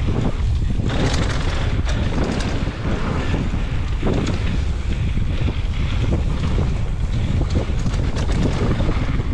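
Wind rushing over an action camera's microphone on a mountain bike riding fast down a dirt singletrack, a steady deep rumble with scattered knocks and rattles from the bike over the trail.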